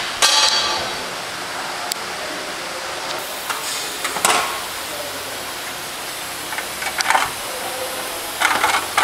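Motorcycle assembly-line workshop noise: a steady hiss with a few short metallic clanks and rattles as parts such as a chain guard are handled and fitted.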